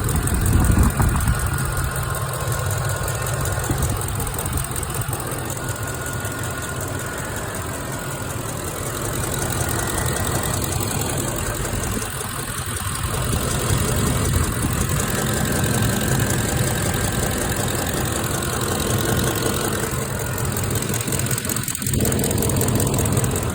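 2006 Ford F-150's 5.4-litre V8 idling with a rapid ticking, the noise the owner is trying to trace. He finds it seems to come from both sides, louder when the engine is hot, with the driver's side sounding like a chain rubbing; on the passenger side the rocker arms and camshaft looked good.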